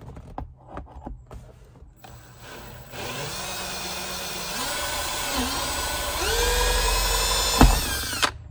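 Power drill with a 3/8-inch bit boring out a pilot hole in a plastic truck console. The motor whine starts about three seconds in and grows louder. A sharp snap comes as the bit goes all the way through, just before the drill stops.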